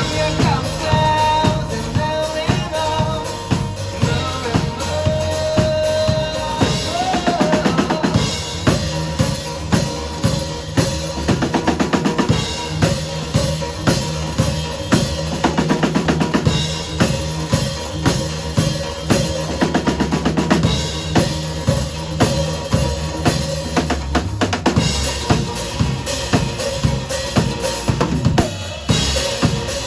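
A rock band plays live through an instrumental passage with no singing. The drum kit leads, kick and snare keeping a steady beat, over held bass notes and sustained guitar tones in the first several seconds.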